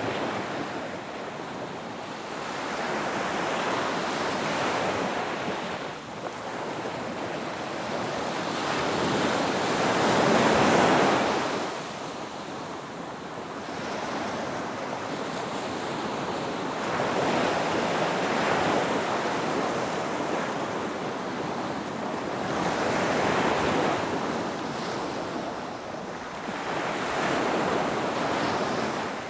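Ocean surf breaking on a beach: waves swell and wash in one after another every few seconds, the largest about ten seconds in, with wind on the microphone.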